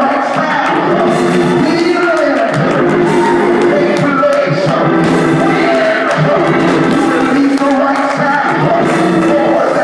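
Congregation praising aloud over loud music: many voices shouting and singing together, steady and unbroken.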